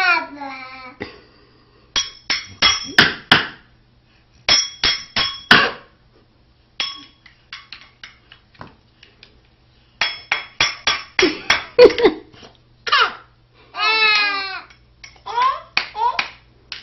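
Baby banging or slapping something in four bursts of quick strikes, a few a second, some with a light ringing note. Between bursts she makes a couple of short babbling calls.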